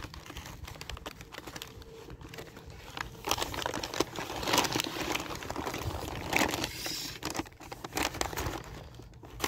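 Paper crinkling and rustling as it is handled, fairly quiet at first and growing louder and busier from about three seconds in.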